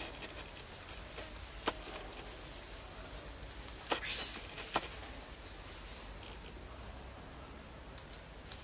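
Tropical forest ambience: a steady hiss of insects, broken by a few sharp clicks and a brief rustle about four seconds in.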